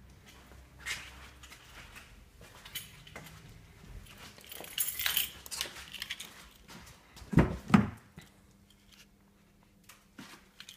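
Footsteps and handling noises, with a jangle of keys about five seconds in, then two heavy thumps from the car's driver's door being opened.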